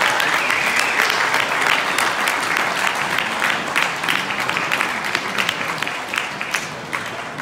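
Audience applauding after a song, the clapping dying down toward the end.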